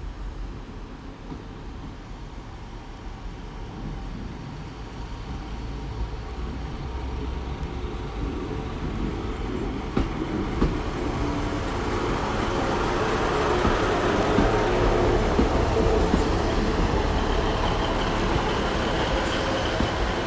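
Class 150 Sprinter diesel multiple unit arriving at a platform, its engine and wheel noise growing steadily louder as it draws alongside, with a sharp click about halfway through.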